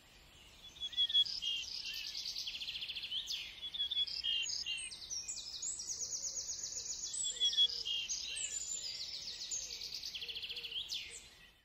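Songbird singing continuously in fast trills and varied, rapidly changing high phrases, starting about a second in.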